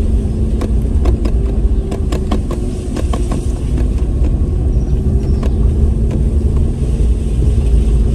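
Inside the cabin of a Maruti Suzuki S-Presso with its three-cylinder petrol engine running steadily while driving over a rutted dirt road, under a heavy low rumble. A cluster of sharp knocks and rattles comes in the first few seconds as the car jolts over the rough surface.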